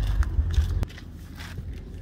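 Lexus LS430's 3UZ-FE V8 idling, a low exhaust rumble from an engine that has developed a misfire; it cuts off abruptly just under a second in, leaving faint footsteps and handling noise.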